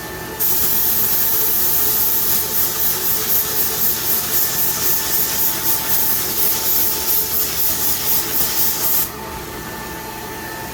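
SATA X5500 paint spray gun hissing as it sprays paint into the gaps between wheel spokes. The hiss starts about half a second in, pulses rapidly, about three times a second, from around two and a half seconds, and cuts off suddenly near nine seconds.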